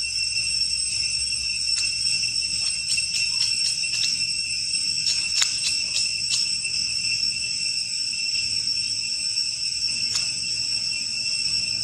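A steady, high-pitched insect chorus drones on without a break, with a few sharp ticks about five to six and a half seconds in.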